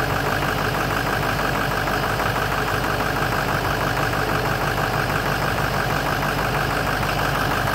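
Ford 6.0 Powerstroke V8 turbo-diesel idling steadily, with an even, rhythmic diesel clatter; it is running with its high-pressure oil standpipes freshly replaced.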